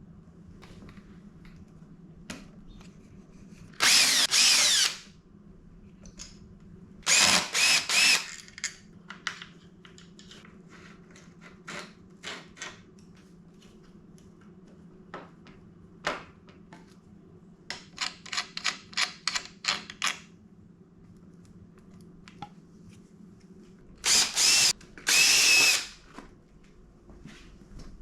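Cordless power drill spinning in several short bursts of a second or two, backing out fasteners during a motorcycle teardown, with a run of quick light clicks between them.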